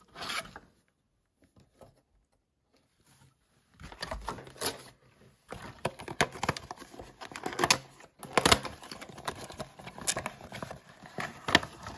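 Cardboard Heroclix booster box being torn open and handled: a run of irregular crackling, tearing and tapping noises that starts about four seconds in, after a brief rustle.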